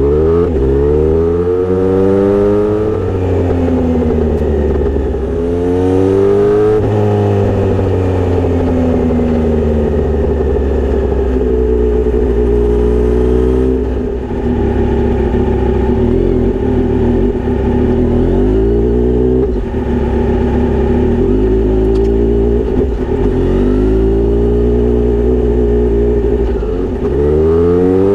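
Kawasaki Z900RS inline-four engine running through a Misty Kintaro short straight-pipe exhaust with a 70 mm silencer. Its pitch rises and falls over and over as it pulls and eases off, with a few steadier stretches in between.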